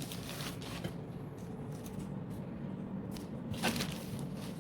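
Faint handling and rustling of packaging and accessories being unpacked, with scattered light clicks and a clearer knock about three and a half seconds in, over a steady low room hum.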